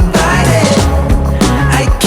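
Background music with a steady beat, bass and singing.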